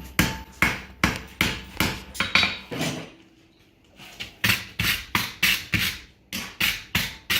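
A farrier's hammer striking a steel horseshoe on an anvil, straightening the bent shoe. About three blows a second, with a pause of about a second partway through before the hammering resumes.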